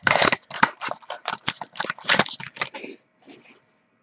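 Packaging of a trading-card pack crinkling and tearing as it is opened by hand: a dense run of crackly rustles for about three seconds, then a brief softer rustle.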